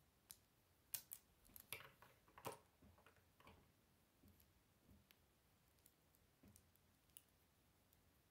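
Small plastic Lego pieces clicking and rattling in the fingers as they are pressed and turned, a quick run of clicks in the first few seconds, then only a few faint clicks.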